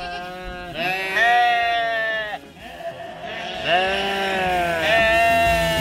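Sheep bleating repeatedly in long drawn-out calls, one after another; the loudest comes about a second in.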